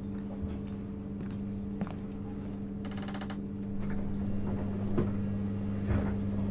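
Steady electric hum inside a JR East 651 series electric train, with scattered light clicks and a brief rapid rattle about three seconds in.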